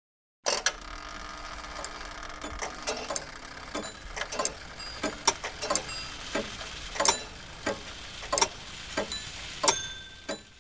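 Clock ticking: sharp, separate ticks, irregular at first and then about one every two-thirds of a second, over a low steady drone, fading away near the end.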